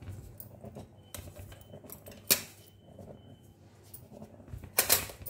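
Hands pressing rice flour down into a steel container: soft rubbing and scraping against the metal, with a sharp knock about two seconds in and a louder clatter near the end.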